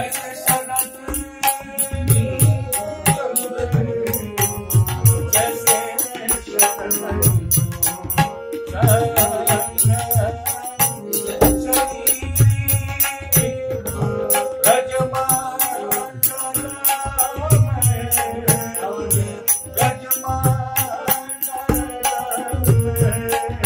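A male voice sings a classical Kumauni Holi song to harmonium accompaniment, with a steady beat of hand drum and small cymbals.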